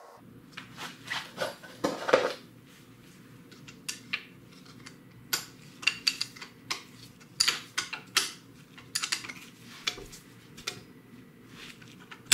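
A wrench and metal parts clinking and clicking at irregular intervals as the drain bolt, fitted with a new crush washer, is reinstalled in a dirt bike's engine, with a louder cluster of clinks about two seconds in. A low steady hum runs underneath.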